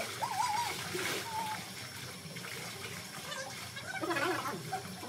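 Pool water splashing and trickling as people move about in it, with brief high voices calling out just after the start and again about four seconds in.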